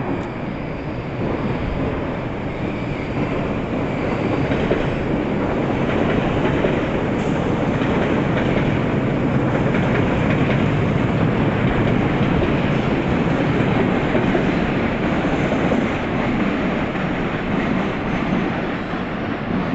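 A train running past on the station tracks: a loud, steady rumble of wheels on rails that builds over the first few seconds, holds through the middle and eases slightly near the end.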